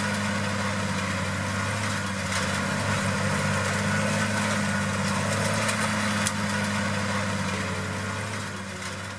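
Tractor diesel engine running at a steady speed with a low, even hum, fading away over the last two seconds.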